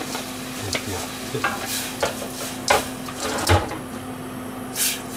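Sake bubbling and sizzling in a hammered aluminium yukihira saucepan on a gas burner as it is boiled down to cook off its alcohol. The pan clanks and scrapes several times on the burner grate as it is lifted and swirled, and there is a short burst of hissing near the end.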